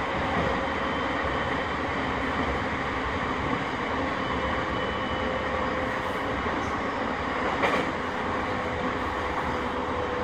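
Sotetsu 10000 series electric train running at a steady speed: an even rumble of wheels on rail with a faint steady whine from the traction equipment and one brief knock about three quarters of the way through.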